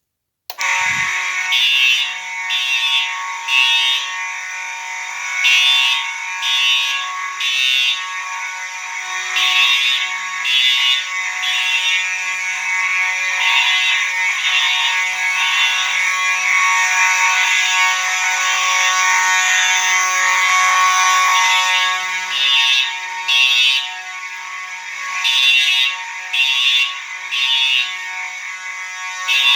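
Two fire alarm horns sounding together, starting about half a second in: one horn sounds continuously while a Simplex TrueAlert horn blasts in the code-3 temporal pattern, three blasts then a pause, over and over. Really loud.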